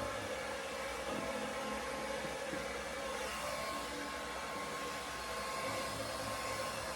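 Hair dryer blowing steadily, with soft background music and a bass beat underneath.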